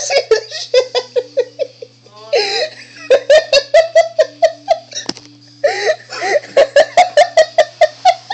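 A person laughing hard in repeated bouts. Two bouts start on a high drawn-out note and then break into rapid pulses of about five a second.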